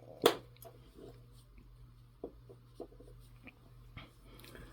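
Plastic spoon scraping and tapping while scooping dry beef and rice, with one sharper click near the start and light scattered scrapes after.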